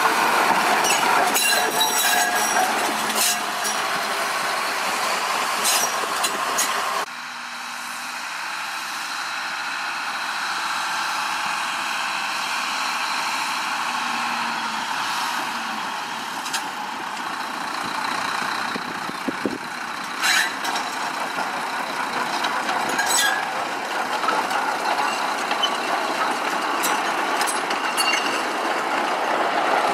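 Sugar cane train on narrow-gauge track: a steady rattle of the locomotive and cane bins, with scattered sharp knocks. The sound drops abruptly about a quarter of the way in and then slowly builds again.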